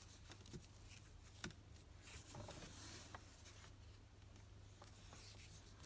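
Near silence: faint rustling and a few light clicks of a crochet hook working yarn, over a steady low hum.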